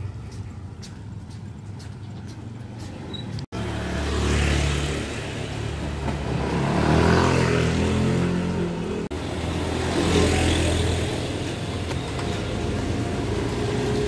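Motor vehicles passing on a wet street: engine hum and tyre hiss swell and fade about three times, with a low rumble underneath.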